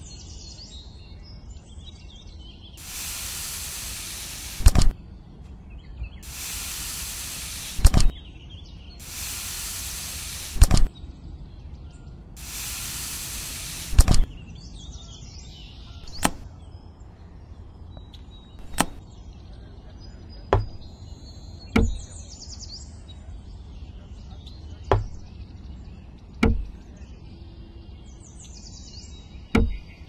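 Parts of a small model bridge being handled and set down on sand: four stretches of hiss, each ending in a sharp knock, then seven separate knocks and clicks a second or more apart, with faint bird chirps behind.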